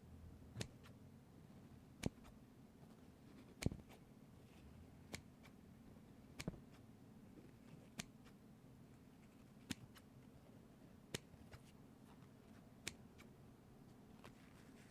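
A series of sharp single clicks, about one every second and a half, over a faint steady low hum.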